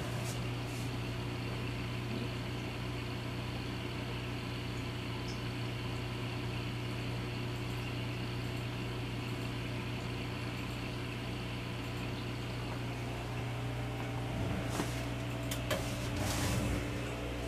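Steady low hum and hiss of a running aquarium's equipment, with a few faint knocks near the end.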